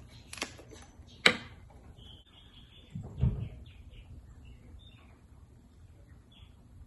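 Small birds chirping in the background, with a sharp click about a second in and a dull thump about three seconds in.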